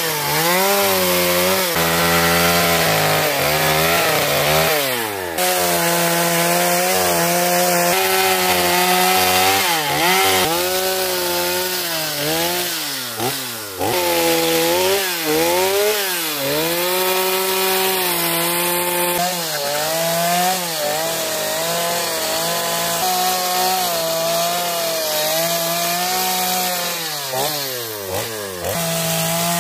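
Gas chainsaw running at high revs while cutting into wood. Its pitch sags each time the chain bites and climbs again as it frees, with a few deeper dips and swoops.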